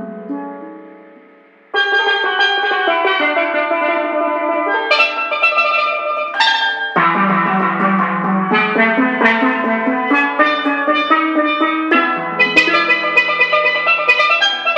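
Instrumental music of quick, bright pitched notes over a lower line. It fades away at first, comes back in sharply about two seconds in, and changes section twice before fading near the end.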